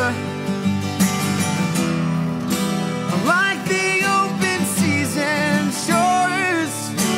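Music: a slow song with guitar chords under a wavering, sliding melody line.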